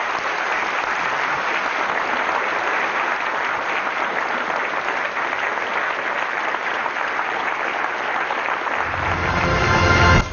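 A large theatre audience applauding steadily. Near the end, the outro music comes in under the clapping, low and swelling.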